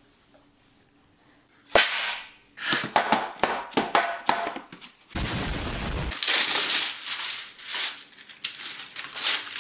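A metal baking sheet set down on the counter with a single sharp clank, then a box of Cut-Rite wax paper handled and a long sheet pulled off the roll, the paper rustling and crackling with quick clicks.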